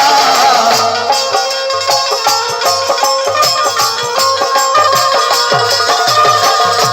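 Instrumental break in a Hindi devotional folk song: a melody instrument plays over a quick, steady drum beat with a shaker.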